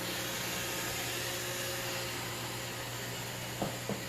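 iRobot Roomba 655 robot vacuum running steadily, a constant whirring hiss with a low hum. Two light knocks come close together near the end.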